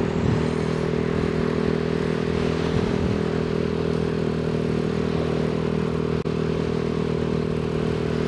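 Yamaha NMAX 155 scooter's single-cylinder engine running at a steady cruising pace, heard through a helmet-mounted camera, with a rush of wind and road noise.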